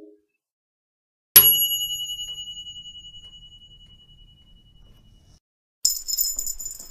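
Ding sound effects: a single bright bell-like ding about a second and a half in, ringing on one high tone and fading away over about four seconds. Near the end a second, very high ding with a fluttering, jingling ring begins.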